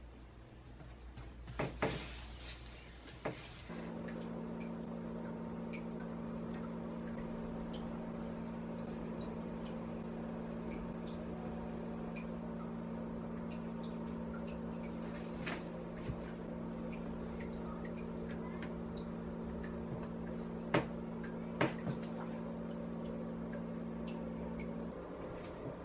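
Hands handling rounded bread dough balls and setting them on a baking tray: a few soft knocks and taps, the sharpest about two seconds in and again about three-quarters through. Under them runs a steady low hum that starts about four seconds in.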